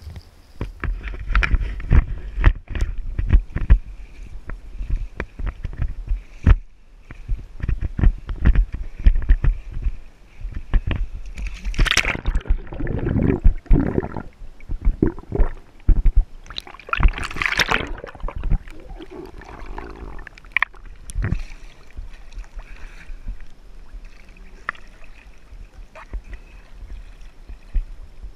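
Lake water splashing and slapping around a kayak and a waterproofed camera, with many sharp knocks in the first half. Loud gurgling splashes come about twelve and seventeen seconds in as the camera dips into the water, then lighter lapping of small waves.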